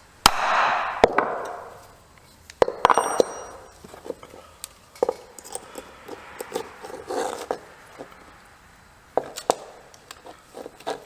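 A hammer striking a steel punch set against a knife's pommel, with sharp metal knocks; one pair of blows near three seconds leaves a high ringing clang. These are followed by lighter clicks and scraping as pliers grip and work the pommel and leather washers off the tang.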